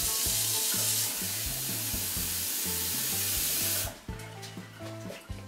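Bacon, vegetables and soaked dried peas sizzling in a stainless steel stockpot on a hot hob with little liquid left: a steady hiss that cuts off suddenly about four seconds in. Background music plays underneath.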